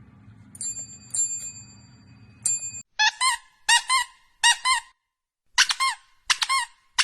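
Three high ringing dings, then from about three seconds in, loud repeated squeaks that come in pairs, about one pair a second.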